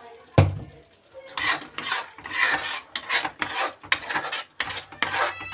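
Slotted steel spatula scraping and stirring a thick masala paste in a steel kadhai, in quick repeated strokes of about two to three a second, working the salt and ground cashew paste into it. A single sharp knock sounds about half a second in.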